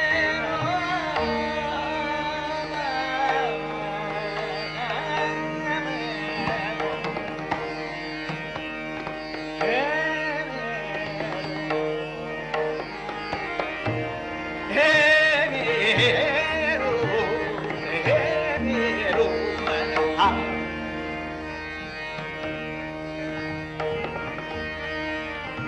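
Hindustani classical vocal music: a melodic sung line with gliding ornaments over a steady drone, with occasional tabla strokes.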